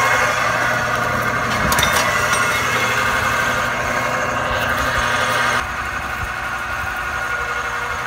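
A homemade wire stripper running: an electric fan motor turns a pair of treadmill rollers that crush copper wire and squeeze the insulation off. The steady motor hum carries on throughout, while a higher, grinding part of the noise cuts off suddenly about five and a half seconds in.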